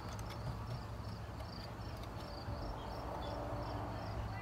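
Cricket chirping steadily, about three short chirps a second, over a low steady hum, with a few faint clicks from handling the light fixture's mounting parts.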